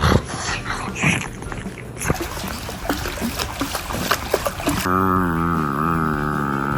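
A pug lapping water, with a quick run of irregular wet clicks and splashes. About five seconds in, a long pitched sound with a gently wavering tone takes over.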